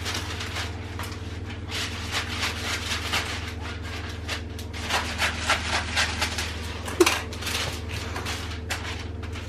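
Baking paper crinkling and rustling in quick runs as it is unrolled from its roll and handled, with one sharp snap about two-thirds of the way through. A steady low hum runs underneath.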